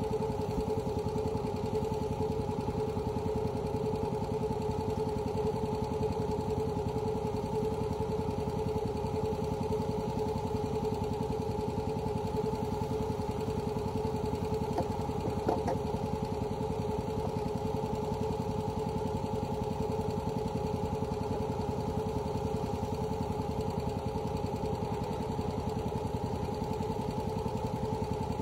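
An engine idling steadily at an even, unchanging pitch.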